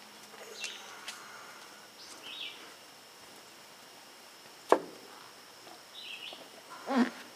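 A sharp metallic clank about halfway through and a duller knock near the end as a cooking pot and its lid are handled and set down into an insulated cooler. A bird chirps faintly now and then in the background.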